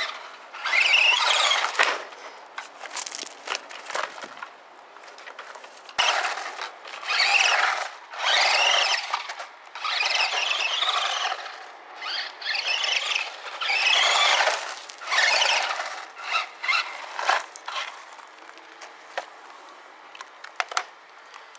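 HPI Ion MT 1/18-scale RC monster truck's brushed electric motor and drivetrain whining in repeated bursts of throttle, the pitch rising and falling with each burst. The bursts die down to a few short blips near the end.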